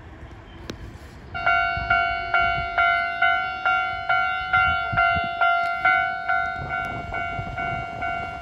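Japanese railway level-crossing alarm bell ringing, starting about a second and a half in: an even, repeated clanging tone, a little over two strikes a second, each strike fading before the next.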